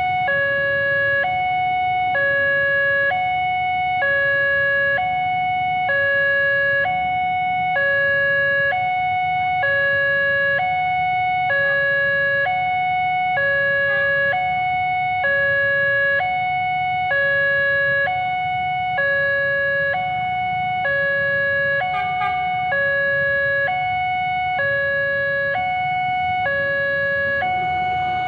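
Railway level-crossing warning siren sounding continuously, stepping back and forth between two pitches about every half-second, which signals that a train is approaching and the crossing is closing. A steady low rumble of road traffic lies underneath.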